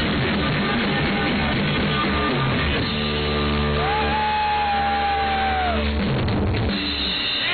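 Live rock band playing with drum kit and electric guitar. About three seconds in the band holds a chord under a long high note that rises, holds and slides down near six seconds, and the music changes again about seven seconds in, as at the close of a song.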